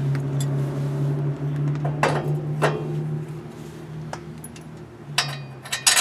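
A few sharp metal clanks and clinks as hub parts are handled and fitted, two about two seconds in and a quick cluster near the end, over a steady low hum that drops out briefly near the end.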